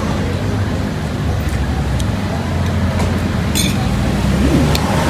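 Steady low rumble of road traffic, with a vehicle engine running close by, and a short click about three and a half seconds in.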